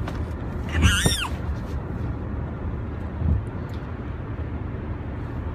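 Steady low road rumble inside a moving car, with a child's short high-pitched squeal about a second in and a brief low bump a little past three seconds.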